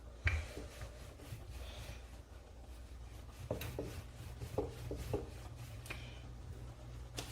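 Rolling pin rolling out chapati dough on a board: soft rubbing strokes with several light knocks, over a steady low hum.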